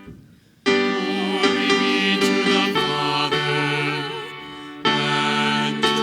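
Music with singing starts suddenly under a second in, with a voice singing with vibrato over instruments. It eases off briefly and comes back loud just before the end.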